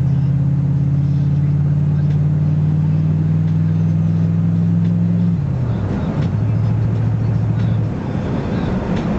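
Chevrolet Caprice engine held at a raised steady speed, then dropping back about five seconds in. It is blipped unevenly near the end. The owner is chasing an unexplained knock that comes with sharp revving.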